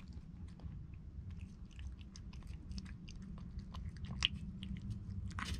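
Cat eating wet food from a stainless steel bowl, heard close: irregular chewing with many small wet clicks and smacks, over a low steady hum.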